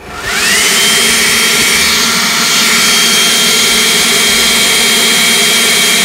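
Ryobi 18V ONE+ cordless leaf blower switched on, spinning up with a rising whine in its first half second, then running steadily at full speed. It is powered from a 40V battery through a homemade 40V-to-18V DC-DC converter adapter.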